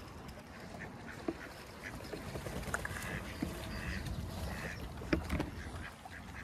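Swans and ducks feeding on the water: scattered sharp snaps and splashes over a steady low rumble of water, with duck calls.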